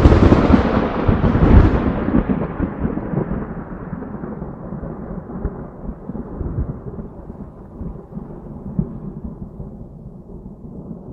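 A thunderclap with a long rolling rumble. It is loudest in the first two seconds, then slowly dies away into a low, crackling rumble.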